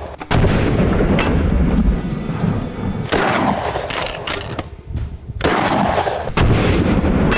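A series of 12-gauge shotgun blasts from a DP-12 double-barrel pump shotgun, several shots a couple of seconds apart, each a sudden boom with a long, heavy low rumbling tail.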